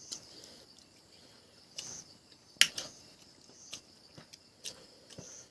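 Steady high-pitched insect trill, like crickets, with several short sharp mouth clicks and smacks from someone eating, the loudest about two and a half seconds in.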